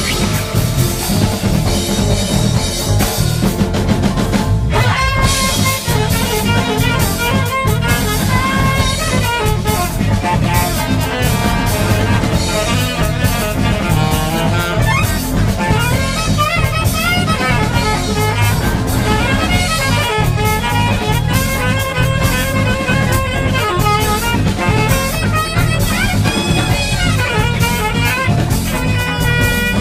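Instrumental music: a steady drum beat with wavering melodic lead lines over it.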